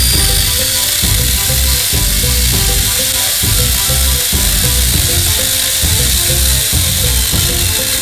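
Background music with a steady beat, over the hissing whine of an angle grinder fitted with a mini chainsaw bar and chain cutting into a wooden log.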